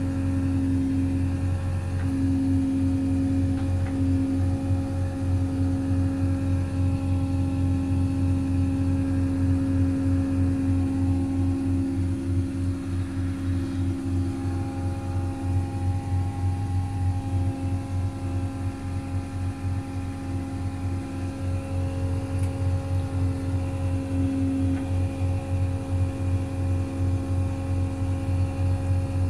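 Caterpillar CW34 pneumatic-tyred roller's diesel engine running steadily while the roller travels, heard from the operator's cab: a constant deep hum with a steady higher tone over it.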